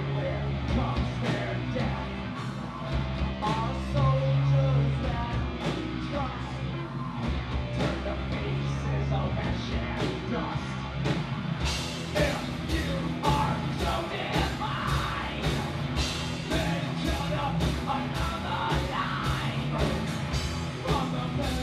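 Live rock band playing loud: electric guitar, drums and keyboards, with a singer yelling into a microphone. About halfway through, the drums move to a fast, steady beat.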